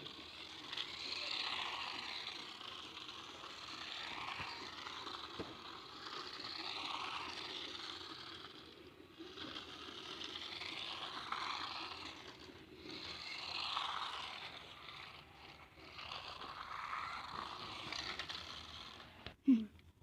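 Toy RC car's small electric motor and gears whirring, with its wheels scraping on the ground, swelling and fading again and again. A sharp knock comes shortly before the end.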